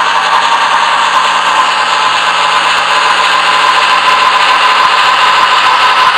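HO scale MTH 2-8-8-4 Yellowstone model steam locomotive running steadily along the track, a continuous whirring hiss with no clear separate beats.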